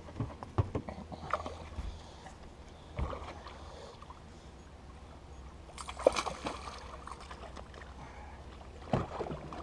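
Scattered knocks and clicks on a fishing boat with faint water sloshing, over a low steady hum. Louder clatters come about six seconds in and again near the end.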